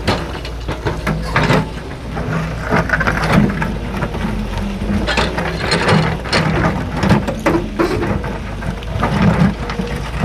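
Heavy machinery running steadily with a low drone, over which come frequent irregular knocks and clatter, like rock or gravel being handled.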